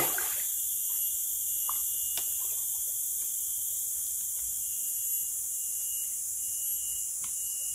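Steady, high-pitched chorus of forest insects, with a fainter thin whine held beneath it and a few faint ticks.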